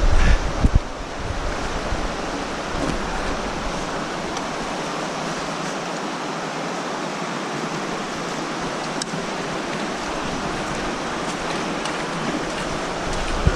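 Steady rush of flowing creek water, even and unbroken, with a little low wind buffeting on the microphone in the first second.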